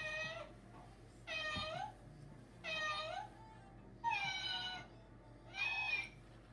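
Toy faux cat playing a recorded cat meow over and over: five similar meows, about a second and a half apart, the first already under way at the start.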